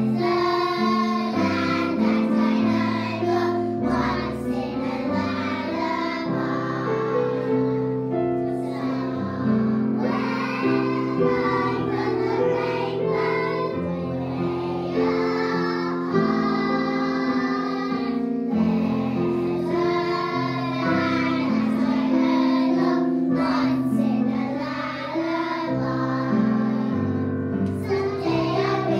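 A group of young children singing a song together in unison, over a steady instrumental backing.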